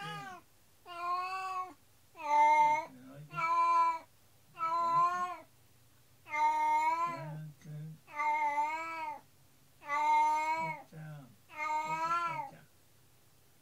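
Domestic cat meowing over and over, about nine long drawn-out calls each a second apart or less, each rising and falling in pitch. This is distressed, plaintive calling from a cat left alone at home after her companion cat was taken away to the vet.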